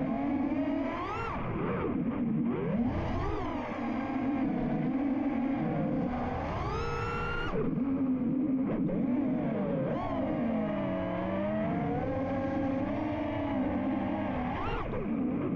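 FPV freestyle quadcopter's brushless motors (Ethix Stout 2306 1750 kv) and propellers whining, the pitch sweeping up and down with the throttle; about six seconds in it climbs to a high whine that cuts off sharply.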